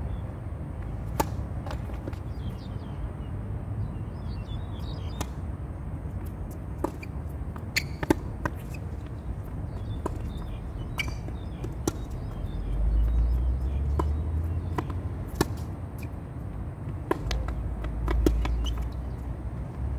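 Tennis rally on a hard court: sharp pops of the racket striking the ball, the first about a second in as the serve is hit, along with ball bounces, spread irregularly through the rally. A low rumble swells twice in the second half.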